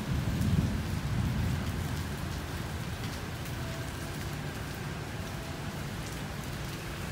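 Wind buffeting a phone's microphone, an uneven low rumble that is loudest about half a second in, with a few faint ticks over it.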